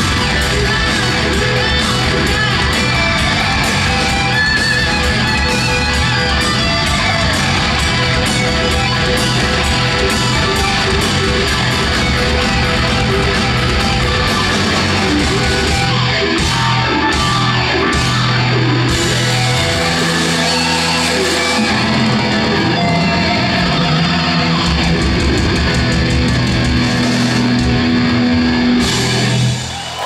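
Live hard rock band playing loud, recorded from the audience in a concert hall: electric guitar over drums, bass and keyboards. After the middle the cymbals break off for moments and long held low notes ring out, with a brief drop in loudness at the very end.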